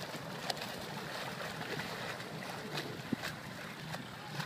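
Steady hum of an outboard motor running slowly, mixed with water splashing and wind on the microphone, with a few sharp clicks.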